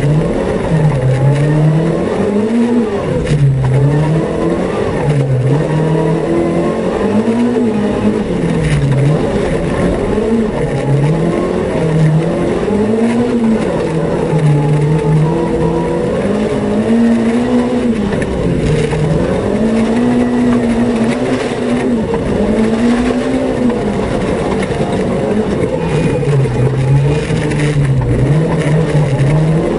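Renault Twingo rally car's engine heard from inside the cabin, revving hard and dropping back again and again as the driver accelerates, shifts and lifts through the turns.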